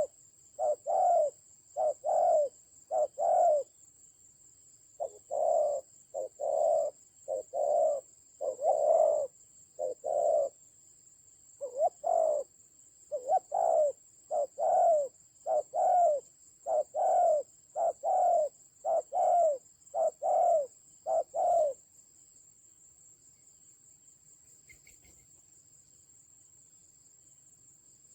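Spotted dove cooing in long runs of repeated low coo notes, a little over one a second. The runs break twice and stop about 22 seconds in.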